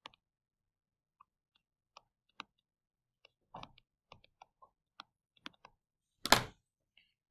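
Light, scattered clicks and taps of a stylus on a tablet screen while numbers are handwritten, with one short louder noise about six seconds in.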